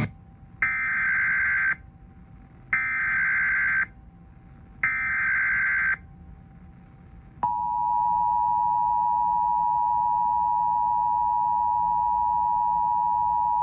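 Emergency Alert System tones on a radio broadcast: three bursts of SAME header data, about a second each and two seconds apart, then about seven seconds in the steady two-tone EAS attention signal. This is the alert sequence for a National Weather Service severe thunderstorm watch.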